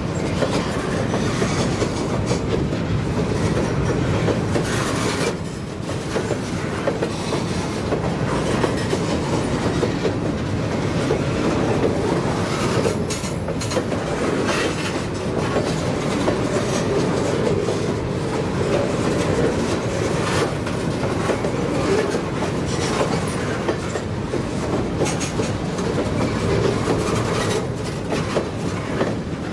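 Freight train of covered hopper cars rolling past: a steady rumble of steel wheels on rail, with repeated clickety-clack as the wheels cross rail joints.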